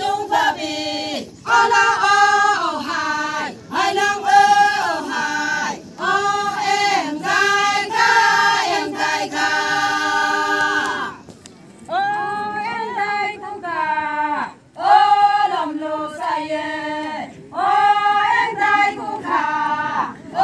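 A group of Konyak Naga women singing a traditional folk song in unison, unaccompanied, in short held phrases. The singing breaks off briefly about eleven seconds in, then resumes.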